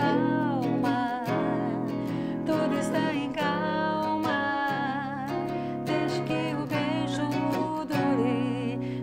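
A woman singing with vibrato, accompanied by acoustic and electric guitar.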